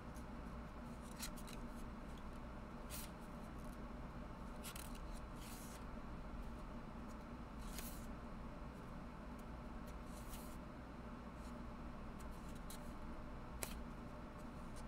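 Paper pages of a small paperback guidebook being flipped by hand: short dry page-turn rustles every second or two over a steady low hum.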